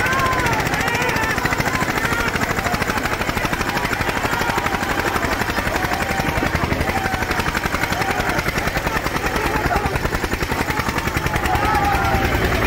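Diesel tractor engine running close by with a rapid, even chugging, a little louder near the end.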